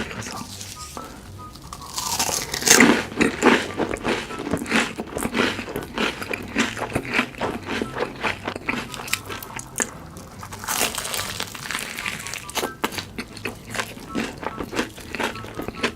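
Close-miked biting and chewing of crunchy food: a run of sharp crunches, with louder bite bursts a couple of seconds in and again around eleven seconds in.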